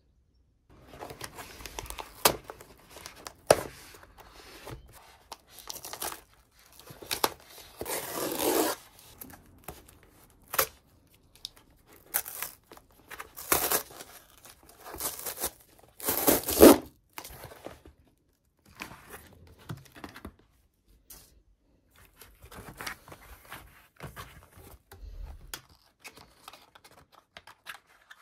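Hands tearing open a cardboard mailer box: tape and cardboard ripping in irregular bursts, the loudest rips about eight and sixteen seconds in. Softer rustling and handling follows as small paperboard boxes are lifted out.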